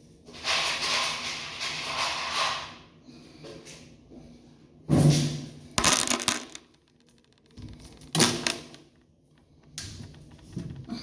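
Handling and clatter from repair work: a scraping, rustling stretch of about two seconds, then separate sharp knocks and rattles about five seconds in, about eight seconds in and near the end, with the loudest knock about five seconds in.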